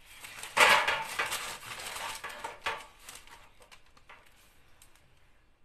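A square metal baking frame is set down and shifted on a parchment-lined baking tray: metal clattering and scraping with paper rustling. It is loudest about half a second in, then a few lighter knocks, and it fades out after about three seconds.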